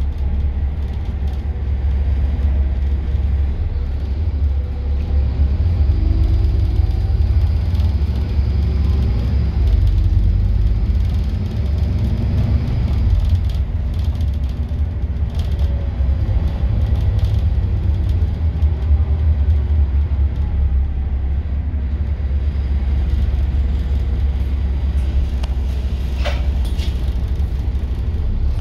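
Scania N230UD double-decker bus on the move, heard from the upper deck: a steady low engine and road rumble, the engine note rising and falling. A short sharp click about two seconds before the end.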